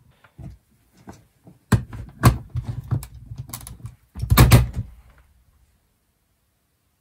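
Handling knocks and clicks of small hard objects on a workbench, a scattered run of sharp taps with three louder thunks, then stillness for the last couple of seconds.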